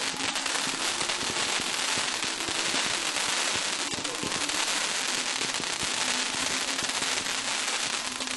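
Ground fountain firework spraying sparks: a steady hiss packed with fast crackles.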